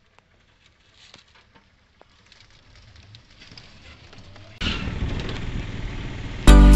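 Wind and road noise from a moving vehicle on a phone microphone, faint at first and building, then jumping suddenly louder about two-thirds of the way in; loud music cuts in near the end.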